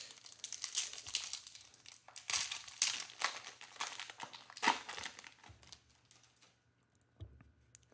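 Foil wrapper of a Panini Mosaic basketball card pack being torn open and crinkled by hand: a dense crackling that dies away about two-thirds of the way through. A soft low knock follows near the end.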